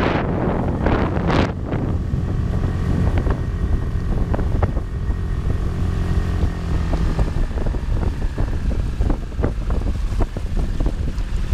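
A 6 hp outboard motor runs at a steady speed, driving an inflatable boat. Wind buffets the microphone for the first second or so. After that, short splashes of water slap against the hull.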